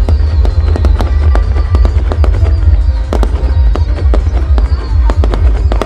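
Aerial fireworks shells bursting in quick succession: a dense string of sharp bangs and crackles over a constant low rumble, with music playing underneath.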